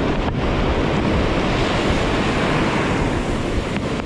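Surf from a rough, swell-driven sea washing in, mixed with wind buffeting the microphone: a steady rush of noise.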